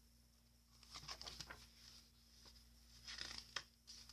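Near silence: room tone with a steady faint hum and a few faint rustles and clicks.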